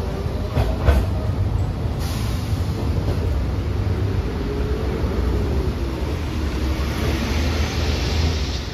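Hiroden 3900-series articulated tram running away from the stop along wet street track: a steady low rumble, with a couple of wheel knocks about a second in and a faint wavering whine in the middle. A hiss swells near the end.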